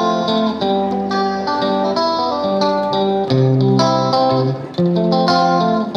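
Background instrumental music: a melody of plucked-string notes.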